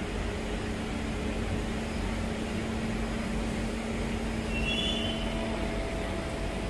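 MRT train at a station, a steady rumble with a low hum that stops near the end and a higher steady tone coming in a little past halfway.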